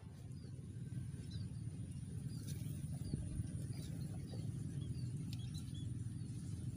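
Outdoor ambience: a bird chirping in short, high notes, repeated every half second or so, over a steady low rumble.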